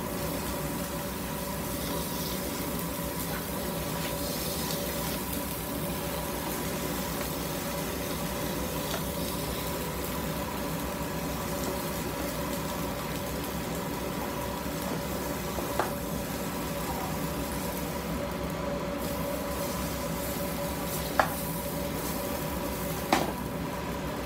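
Chicharrones (fried pork rinds) sizzling in salsa in a frying pan over a gas burner as they are stirred with a spatula, with a steady mechanical hum underneath. A few sharp clicks of the spatula against the pan come in the latter half, the loudest two near the end.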